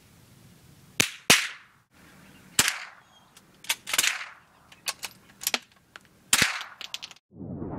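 .22 rimfire rifles firing about eight sharp cracks in irregular succession, some in quick pairs, each with a short echoing tail.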